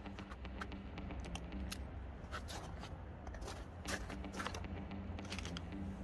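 Scattered clicks and rustles of plastic food containers, packaging and a spoon being handled, over a steady low hum.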